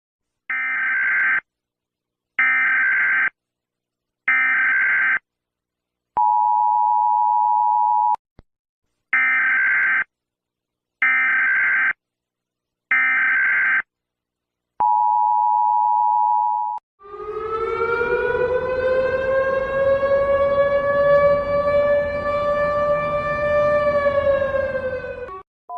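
Emergency Alert System alarm: three one-second bursts of data tones, a steady two-note attention tone for about two seconds, three more data bursts and a second attention tone. Then a siren tone rises, holds and falls away before cutting off near the end.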